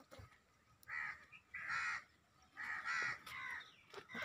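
Crows cawing: several harsh caws in quick succession, roughly a second apart.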